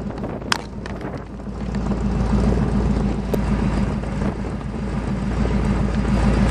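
Ford 390 FE V8 running through headers and straight-through glass-pack mufflers, a deep steady exhaust note that grows gradually louder. A brief sharp click about half a second in.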